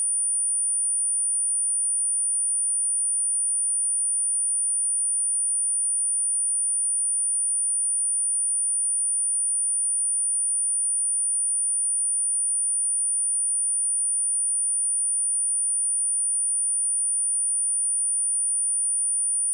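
A steady, high-pitched pure sine-wave test tone at 9394 Hz, held unbroken at one pitch, as used for speaker testing and for vibrating water and dust out of a speaker.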